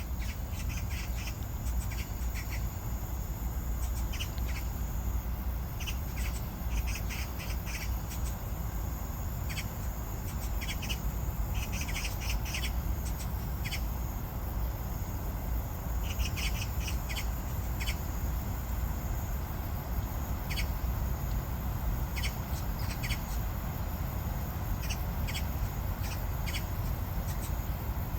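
Birds calling in clusters of short, quick, high notes, again and again, over a steady low rumble.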